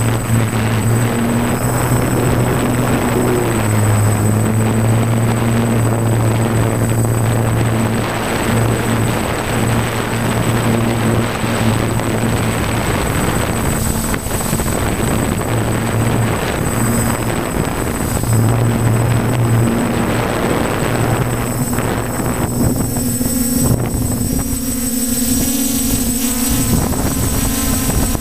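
Multirotor drone's electric motors and propellers running steadily in flight, heard from a camera mounted on the craft: a constant hum under a dense rush of air, with a thin high whine. About three-quarters of the way through, the hum changes to a different, more broken-up tone.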